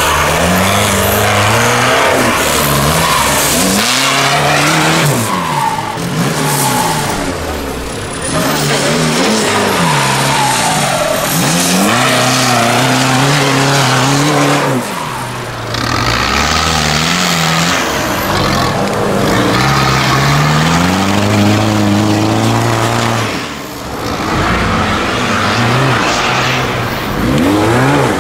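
Off-road competition buggy engines revving hard, their pitch climbing and dropping again and again as the vehicles claw their way up steep sand banks.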